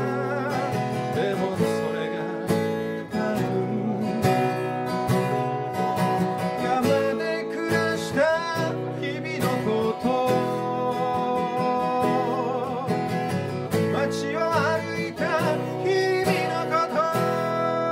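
Live acoustic guitar strummed in a steady rhythm, with a lead melody over it in long, wavering held notes.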